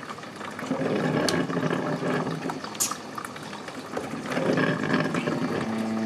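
Oster drip coffee maker brewing, hot water bubbling through the machine and into the glass carafe. The sound swells twice, about a second in and again past four seconds.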